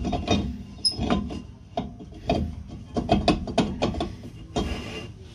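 Hyundai Getz's cast-iron rear brake drum being worked by hand against the hub, knocking and clattering on the brake shoes with a scrape near the end. It won't slide on because the freshly adjusted shoes have spread out too far.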